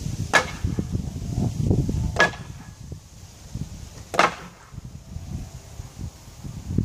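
Three sharp knocks about two seconds apart, each with a short ring, as a person swings hand over hand along hanging grab bars on a wooden backyard obstacle frame, the bars knocking with each catch. Wind rumbles on the microphone throughout.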